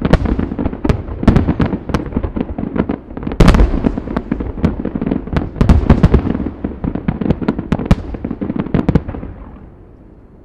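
Aerial fireworks bursting in a dense barrage, many bangs a second overlapping with a deep rolling rumble. The barrage thins and fades away near the end.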